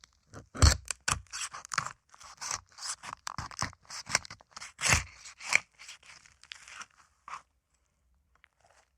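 Mutilation/dissection gore sound effect: an irregular run of tearing, cutting and crunching sounds, like flesh being torn and cut apart, with two louder crunches about a second in and about five seconds in. It stops about seven seconds in.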